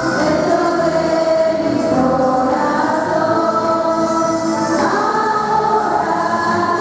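A group of people singing a song together, steady throughout.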